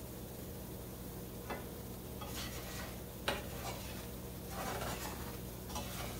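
A fork stirring and scraping flour that is browning in a skillet for gravy, over a light sizzle. The fork ticks against the pan twice and scrapes in short strokes.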